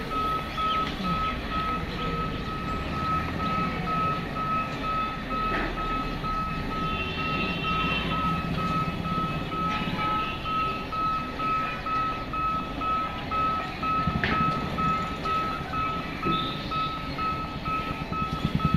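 Electronic warning beeper giving a single high beep at one pitch, repeating evenly and without a break, over a low hum of road traffic.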